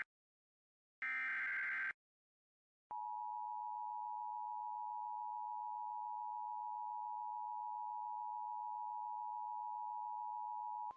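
Emergency Alert System broadcast: the last of the SAME header's screechy digital data bursts lasts about a second. After a short gap, the EAS two-tone attention signal (853 and 960 Hz together) sounds as a steady, unbroken tone for about eight seconds, the signal that a flash flood warning is about to be read.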